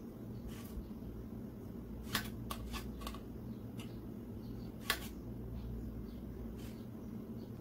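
A metal spoon clicks and taps against a ceramic bowl as milk powder is tipped in: a quick run of light taps about two seconds in and a single sharper tap about five seconds in, over a steady low room hum.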